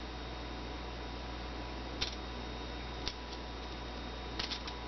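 Light metal clicks of a Beretta PX4 Storm's fire control group parts being worked with a pin punch: one about two seconds in, another a second later, and a quick cluster of three near the end, over a steady low hum.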